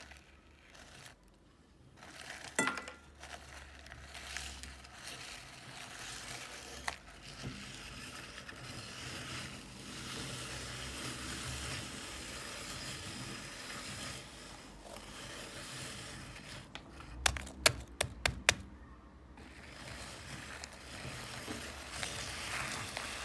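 Wheat biscuits being crushed in a hand-cranked metal meat grinder: a steady dry crunching and scraping as the auger grinds them down. About three-quarters of the way through comes a quick run of five or so sharp cracks.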